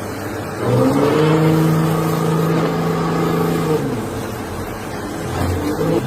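A motor spins up about half a second in, holds a steady pitch for about three seconds, then winds down.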